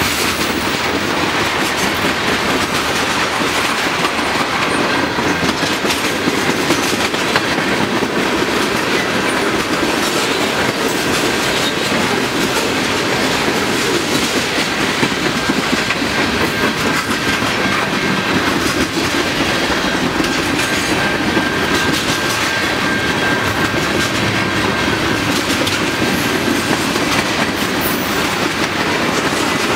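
Freight cars of a long manifest train rolling past close by: a steady loud rumble and clatter with the clickety-clack of wheels over the rail. A faint, high, steady squeal runs through the middle.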